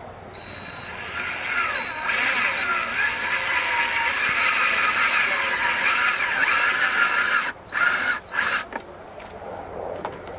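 Black & Decker cordless drill boring a hole through the wall of a plastic bucket near its base. The motor runs steadily, growing louder about two seconds in, then cuts out and gives two short bursts before stopping.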